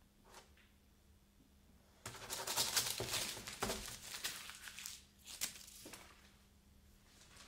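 A sheet of paper being handled and crinkled. A dense crackling rustle starts about two seconds in and lasts a couple of seconds, followed by two or three short rustles.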